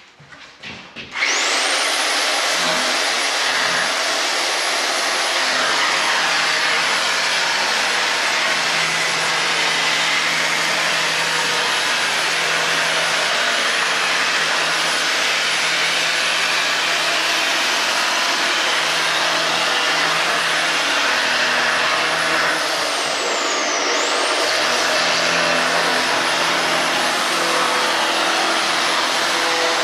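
Makita belt sander starting up about a second in and then running steadily while sanding a curved wooden beam: a loud, even sanding noise with a high motor whine. About three-quarters of the way through the whine drops briefly and climbs back up.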